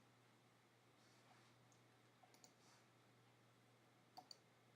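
Near silence with a few faint computer mouse clicks, a pair a little over two seconds in and another pair near the end.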